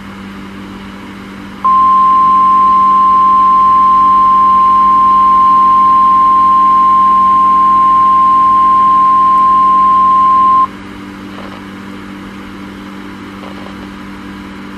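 NOAA Weather Radio 1050 Hz warning alarm tone, sounded as the weekly test: one steady high beep held for about nine seconds, starting about two seconds in and cutting off sharply. A steady low hum and hiss from the radio reception run underneath.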